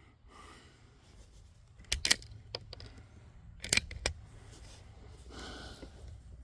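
Two quick clusters of sharp metallic clicks, about two seconds apart, from working the bolt of a Zastava MP22 .22 LR bolt-action rifle. The rifle has been failing to extract its spent casings.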